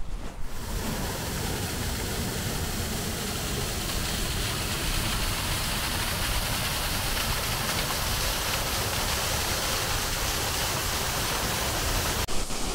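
Mountain waterfall rushing steadily over rocks, heard close.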